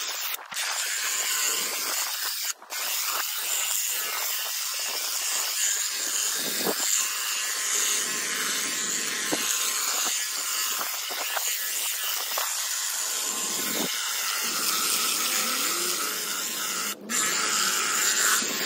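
Battery hedge trimmer buzzing steadily as its blades cut through a leafy shrub, stopping twice for a moment, once about two and a half seconds in and once near the end.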